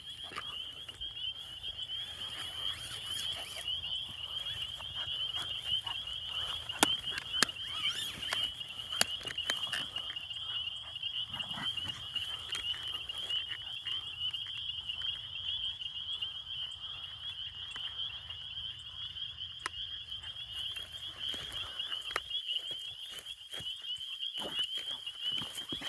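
A steady chorus of calling frogs: a continuous fast trill held at one high pitch, with a few faint clicks.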